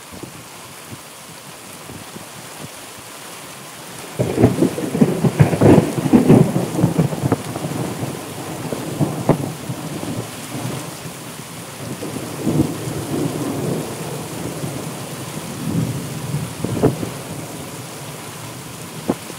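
Thunder over steady rain. About four seconds in, a loud rumbling peal with sharp cracking breaks out, and it dies back into lower rumbles and occasional cracks under the rain.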